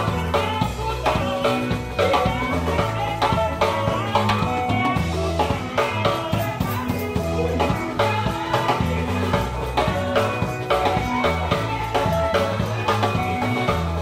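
Electric bass guitar and drum kit playing a seben groove: a busy, repeating bass line in low notes under a steady beat of drums and cymbals, with higher melodic notes above.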